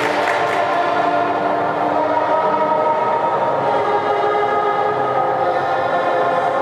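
Figure skating free-skate program music played over the rink's sound system: sustained held chords with no clear beat.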